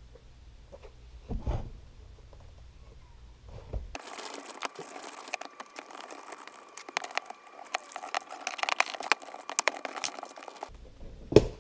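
Hands working a bicycle tire and inner tube onto the rim: soft thumps at first, then several seconds of dense rustling and crinkling with many small clicks, and a sharp knock near the end.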